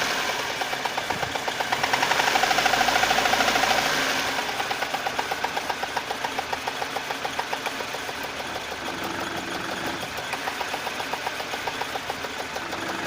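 VAZ 2108 four-cylinder engine running at idle with a rhythmic ticking clatter of unknown origin, about four ticks a second. It runs louder for a couple of seconds near the start, then settles.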